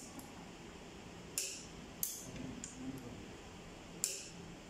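Torque wrench tightening a nut on the front gear train of a Toyota 13Z forklift engine, giving four short, sharp clicks spread over a few seconds.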